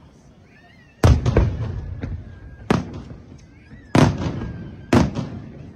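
Aerial firework shells bursting in a display: a string of sharp bangs, each trailing off in a rumbling echo. The heaviest bang comes about a second in, two more big ones near the end, and lighter reports in between.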